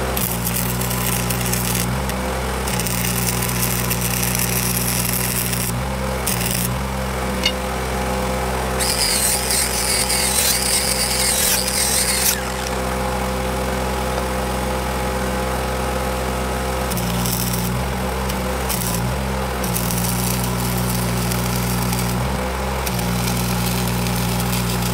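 Arc welding in short runs: the arc's crackling hiss starts and stops several times over a steady engine hum, building up the worn tip of a steel railroad switch point. About 9 to 12 seconds in there is a harsher, higher-pitched stretch.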